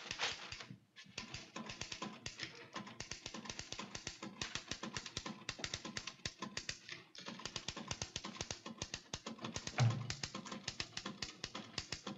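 Typewriter being typed on fast: a steady, irregular run of key strikes, with a short pause about a second in and one louder thump late on.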